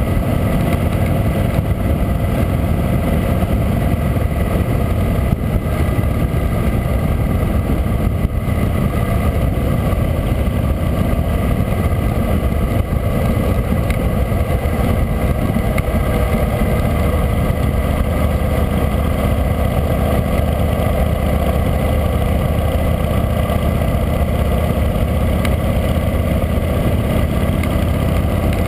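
Harley-Davidson V-twin motorcycle engine running steadily at cruising speed, with wind rushing over the camera. The engine note deepens slightly a little past halfway.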